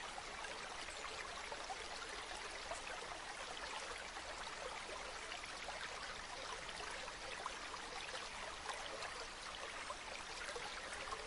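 Faint, steady flowing-water sound like a trickling stream, running on evenly without any distinct events.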